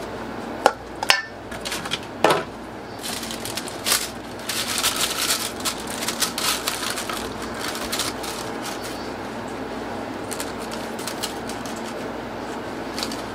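Kitchen work clatter: a few sharp knocks in the first couple of seconds, then a busier stretch of clicking, clinking and rustling, over a steady hum of kitchen equipment.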